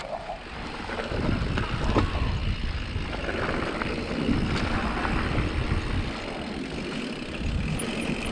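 Mountain bike riding fast down a dirt and gravel trail: tyres rolling and crunching over loose ground, with scattered sharp clicks and rattles from the bike and heavy wind rumble on the microphone.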